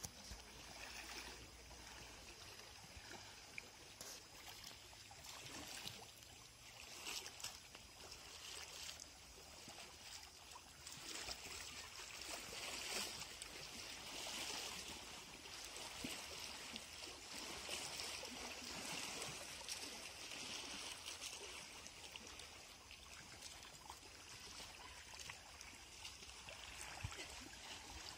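Small waves lapping and splashing faintly against boulders at a lake's edge, a continuous, gently swelling and ebbing wash of water.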